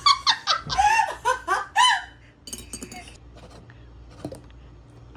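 A person laughing in quick repeated bursts for about two seconds, then dying down to quiet room sounds with a few faint clicks.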